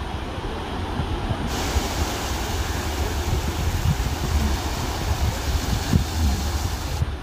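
Small waves washing up a sandy shore, with wind rumbling on the microphone. About a second and a half in, the surf's hiss turns brighter and stays so until near the end.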